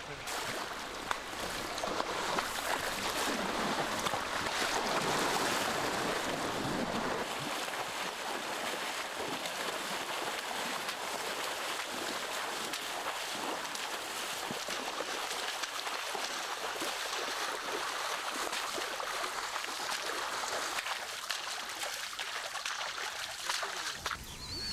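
Running water, a steady rushing with small splashes and ticks, fuller in the first several seconds.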